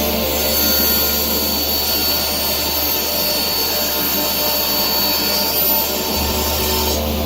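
A workshop power tool running steadily with a loud, even whoosh over a low hum, stopping suddenly near the end.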